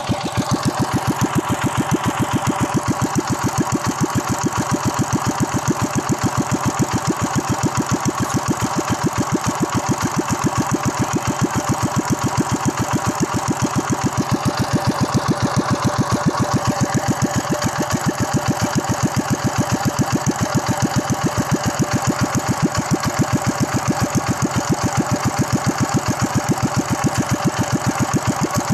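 Honda single-cylinder four-stroke small engine idling steadily at an even, unchanging speed, its firing pulses sharp through an open bent exhaust pipe fitted in place of a muffler.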